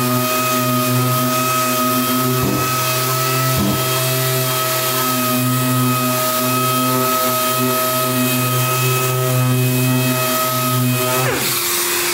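Random orbital sander with a soft interface pad running steadily as it sands the clear-coated carbon-fibre side panel, a steady hum with a couple of brief dips early on. Near the end it is switched off and spins down, its pitch falling quickly.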